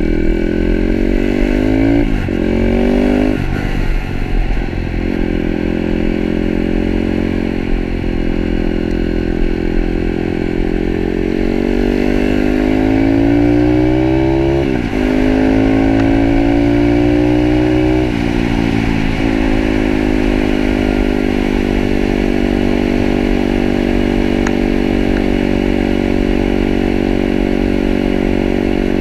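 Pitster Pro 160cc pit bike's single-cylinder engine running under way. Its pitch climbs as it accelerates and drops sharply about five times, as at gear changes, then holds steady at cruising speed.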